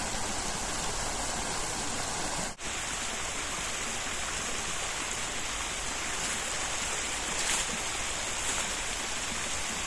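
Mountain brook flowing: a steady rushing of water that breaks off for a split second about two and a half seconds in.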